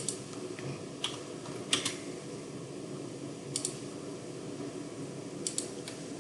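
Computer keyboard and mouse clicks while drafting in AutoCAD: about five sharp, short clicks spread a second or two apart, some of them doubled, over a steady low room hum.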